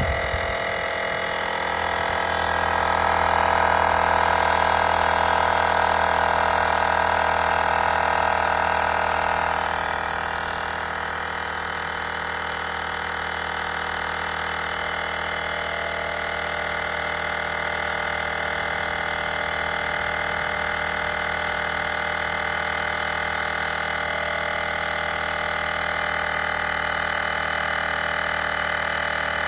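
Steady electric hum with many fixed tones, as from a small motor running. It swells for several seconds about two seconds in, then settles.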